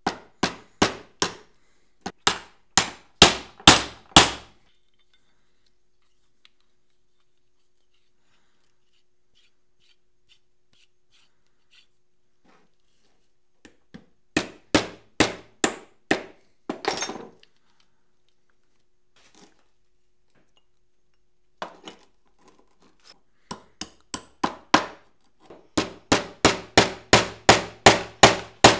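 Hammer striking a steel pin set in a cast-iron vise jaw, metal on metal. It comes in three runs of quick taps, about two to three a second, each run building louder, with pauses of several seconds between them.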